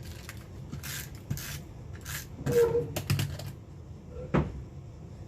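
Paper handling at a craft table: card stock and a layered paper embellishment rustling and sliding, with a few light knocks on the tabletop, the loudest about two and a half seconds in and another near the end.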